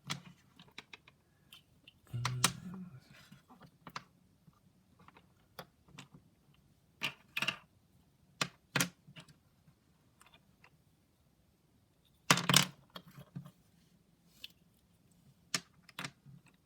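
Plastic puzzle pieces of a barrel cube being handled and fitted together by hand: irregular small clicks and clacks, with louder clusters of knocks about two seconds in, at seven seconds and at twelve seconds.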